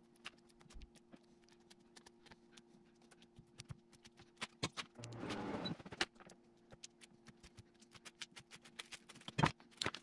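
Uncapping fork scratching the wax cappings off a capped honeycomb frame: faint, irregular ticks and scrapes, with a longer scrape about five seconds in and a louder tick near the end, over a faint steady hum.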